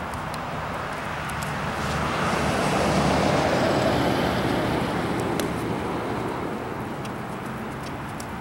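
A road vehicle passing: its tyre and engine noise swells to a peak about three seconds in, then fades away. A horse's hooves beat faintly on grass underneath.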